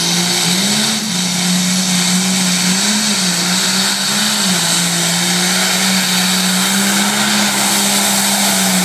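Turbocharged diesel engine of a Case Pro Stock pulling tractor running flat out under load as it drags the weight sled down the track. The engine note holds steady but wavers up and down in pitch several times.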